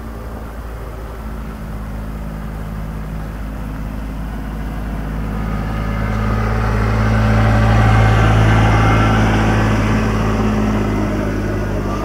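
A motor engine humming steadily, with an even low pitch, growing louder to a peak about eight seconds in and then easing off, as of a vehicle passing by.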